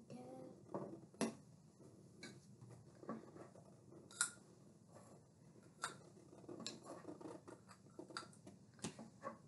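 Sharpie marker drawing on paper clipped to an easel board: faint strokes with small scattered clicks and taps, the loudest about four seconds in.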